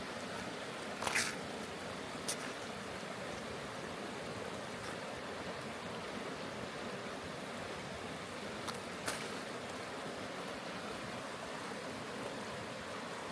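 River water flowing steadily, with a few sharp crackles from the campfire about a second in, again around two seconds, and twice near nine seconds.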